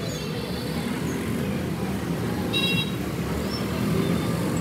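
Steady background road-traffic noise, with a short high-pitched tone about two and a half seconds in.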